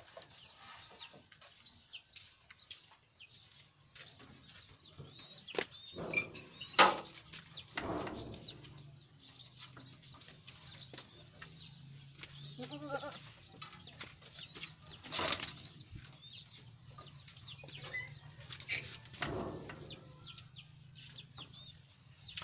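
Small birds chirping steadily in the background, with a few louder sudden knocks and rustles from debris being cleared off the floor of a pigeon loft by hand.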